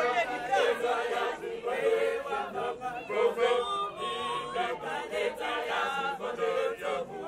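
A large group of men and women singing together in chorus, a Kimbanguist church choir's hymn sung while walking in procession, with several voices overlapping.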